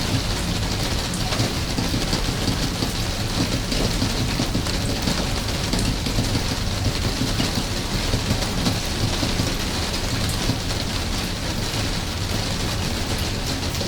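Steady rain: an even hiss with scattered small drop ticks, over a low steady rumble.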